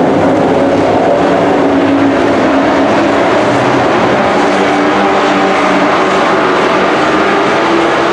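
Engines of several dirt-track race trucks running at speed around the oval: a loud, continuous blend of engine tones that drift slightly up and down in pitch.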